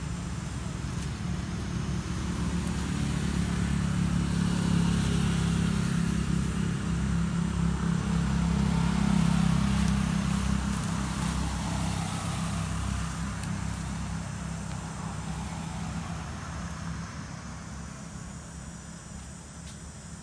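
Low rumble of a motor engine, with a steady hum, growing louder over the first few seconds and fading away over the last several, as of a vehicle passing.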